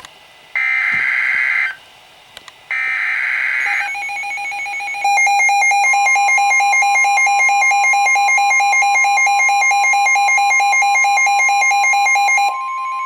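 Emergency Alert System / NOAA Weather Radio alert: two raspy SAME header data bursts, each about a second long, then a fast-pulsing electronic alert beep. A steady single-pitch warning alarm tone joins about halfway through and carries on after the pulsing stops near the end.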